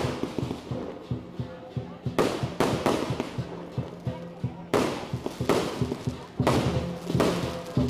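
Fireworks going off in loud sharp bursts about every one to two seconds, over loud music with a fast steady beat.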